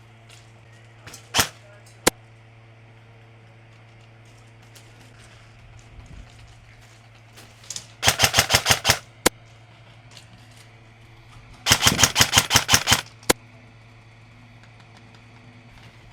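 Airsoft rifle firing: two single shots, then two rapid full-auto bursts of about ten shots a second, the second one longer, and a last single shot. A low steady hum runs underneath.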